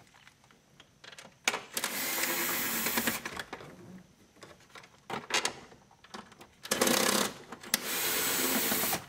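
Cordless power screwdriver running in two spurts as it backs out the screws holding the dash trim. The first spurt, about a second and a half in, is shorter; the second, starting near seven seconds, runs about two seconds. Light clicks of the tool against the screws come between them.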